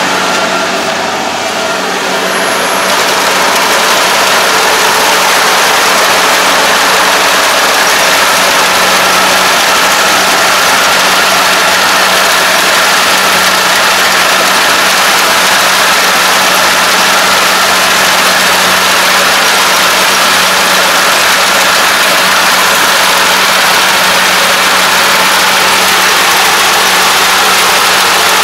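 Kubota ARN460 combine harvester running under load as it cuts and threshes rice, its engine and threshing machinery giving a loud, dense, steady mechanical noise with a constant hum. It is a little quieter for the first couple of seconds, then holds steady.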